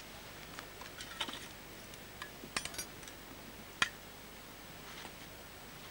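Fishing tackle being handled: a few faint, scattered clicks and light knocks over a steady hiss, the sharpest one just under four seconds in.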